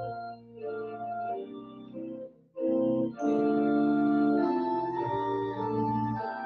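Organ playing a slow piece of sustained chords, with a brief break between phrases about two and a half seconds in.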